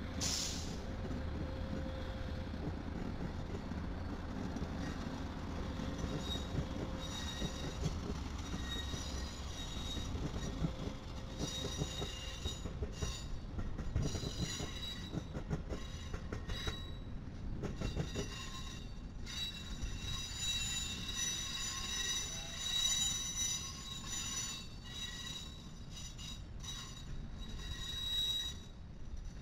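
Amtrak Midwest passenger train rolling past, led by a Siemens Charger SC-44 diesel-electric locomotive. A low engine rumble comes first. From about seven seconds in, the passenger cars' wheels squeal on and off in thin high tones over the rolling rail noise.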